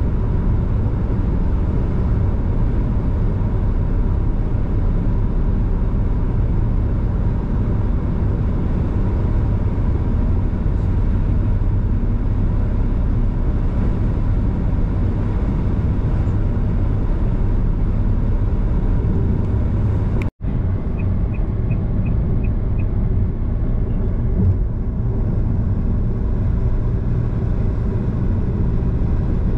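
Car driving, a steady low rumble of road and engine noise. About two-thirds of the way through the sound drops out for an instant, then six faint high ticks follow quickly.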